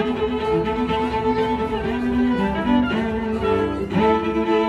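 Instrumental background music of held, changing notes.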